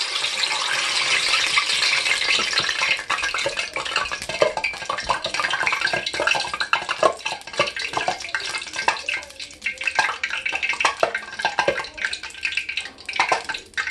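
Hot oil in a Presto electric deep fryer sizzling and crackling where a little water has been flicked in, loudest at first, then crackling more sparsely. This is the sign that the oil is hot enough to fry.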